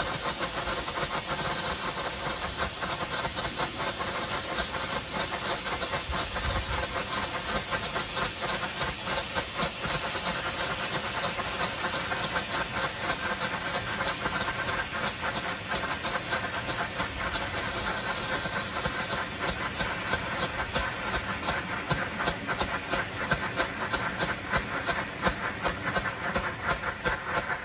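Red pyrotechnic stroboscopes burning: a steady hiss packed with rapid crackling pops, the pops growing a little stronger towards the end.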